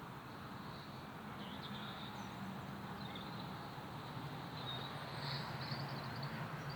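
A steady, distant low rumble from the sky, with a few faint bird chirps over it.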